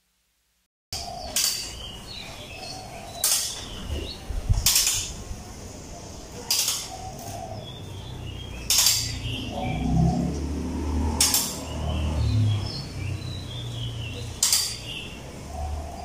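Sharp metal clinks, about seven of them a couple of seconds apart, starting about a second in: a hand tool knocking against the scooter's steel rear frame while bolts are worked on. Birds chirp faintly in the background.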